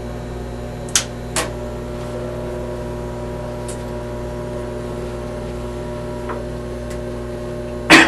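Steady electrical hum with several constant pitches from the siren system's radio: the repeater is still holding its signal just after the voice broadcast. Two faint clicks come about a second in, and a sharp click near the end.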